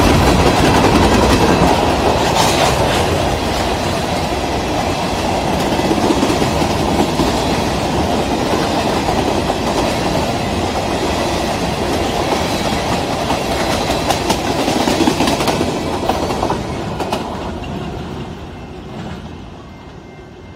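Covered hopper cars of a fast freight grain train passing at speed: a steady rumble with the clatter of steel wheels on the rails. The sound fades away over the last few seconds as the end of the train goes by.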